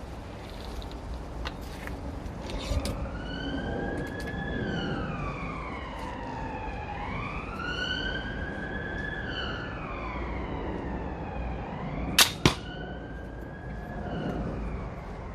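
An emergency-vehicle siren wails, its pitch slowly falling and rising. Near the end a slingbow looses an arrow: two sharp cracks a fraction of a second apart.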